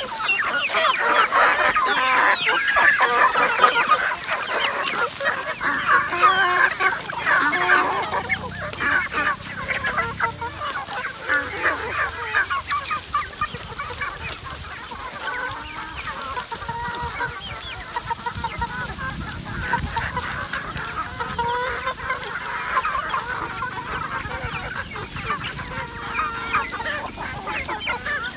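A large flock of free-range chickens clucking and chirping all at once, many birds overlapping. The calling is loudest over the first eight seconds or so, then thins out and quietens.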